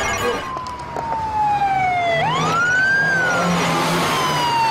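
Police car siren wailing: a slow falling tone that swoops back up about two seconds in, holds briefly, then falls slowly again, with a low engine hum beneath it.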